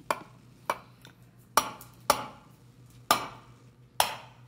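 A raw egg tapped against the rim of a stainless steel mixing bowl to crack it: six sharp clicks at uneven spacing, roughly half a second to a second apart.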